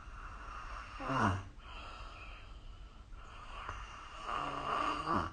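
A person snoring: two snores about three seconds apart, each sliding down in pitch as it ends.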